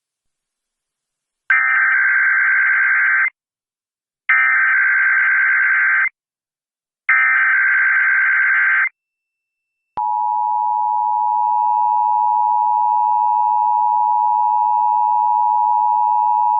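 Emergency Alert System SAME header: three identical bursts of shrill digital data screech, each nearly two seconds long with short gaps between, encoding a Required Monthly Test. About ten seconds in, the EAS two-tone attention signal (853 and 960 Hz) starts, a steady harsh dual tone.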